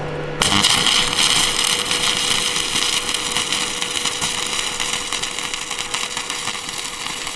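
Stick (arc) welding: the electrode's arc crackles and sizzles steadily as a rebar rod is welded onto a steel drum, starting about half a second in. A faint steady hum runs underneath.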